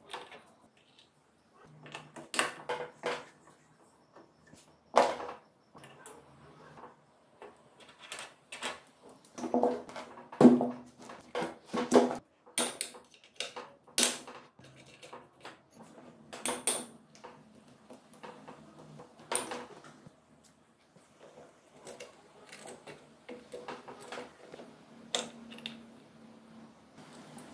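Irregular metallic clinks, clicks and knocks of hand tools and loose engine parts being handled while a Honda CBR250 MC22 four-cylinder engine is taken apart. The sounds come one at a time with short pauses between them, and the busiest, loudest stretch is about halfway through.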